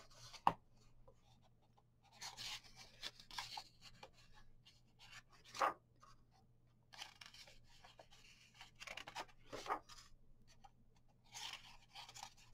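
Paper pages of a coloring book being turned and handled, faint rustles and swishes coming in bursts every couple of seconds.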